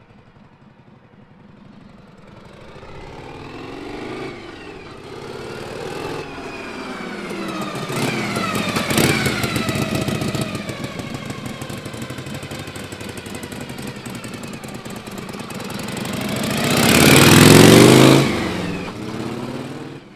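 1963 Harley-Davidson Panhead V-twin motorcycle being ridden past, its engine pitch rising and falling with the throttle. It is faint at first, runs close by, passes loudest near the end, then fades as it rides away.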